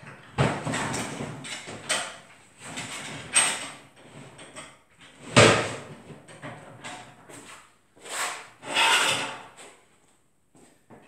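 Fold-out table and its metal leg frame being set up by hand: irregular sliding and scraping with several sharp knocks, the loudest about five and a half seconds in.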